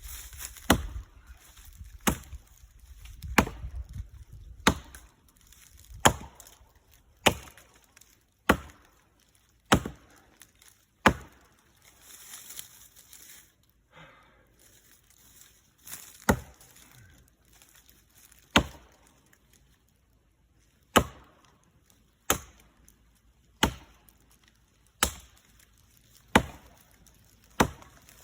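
Axe chopping into a tree trunk: sharp, evenly paced strikes about one every 1.3 seconds, pausing for a few seconds about halfway through before carrying on.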